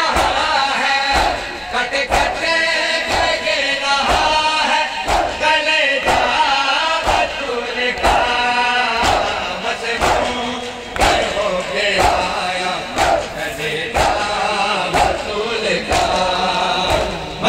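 A noha chanted in a sung refrain by male voices, with a large crowd of mourners beating their chests in unison (matam), about one strike a second.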